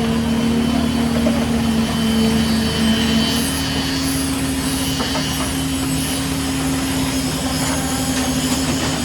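Truck-mounted 56-metre Schwing Stetter concrete boom pump running while pumping concrete: a steady engine drone that shifts slightly in pitch about three seconds in.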